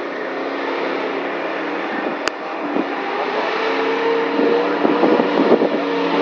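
Pickup truck engine pulling through a mud-filled pond, its steady note growing louder over the second half, over a constant rushing noise. A single sharp click about two seconds in.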